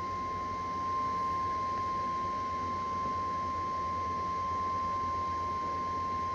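NOAA Weather Radio 1050 Hz warning alarm tone, one steady unwavering high tone, sounding from a weather radio's speaker as part of the required weekly test.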